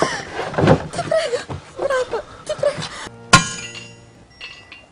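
A woman's high, wavering moans and cries, then a little past three seconds in a single sharp metallic clang that rings on and fades.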